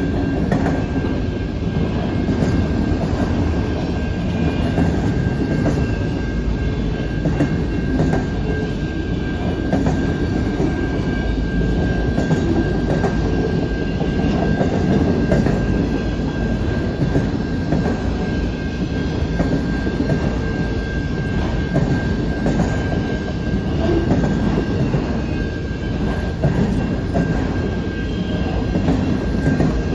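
Autorack freight cars rolling slowly past: a steady rumble of steel wheels on rail, with irregular clicking over the rail joints and a thin, steady wheel squeal that stops near the end.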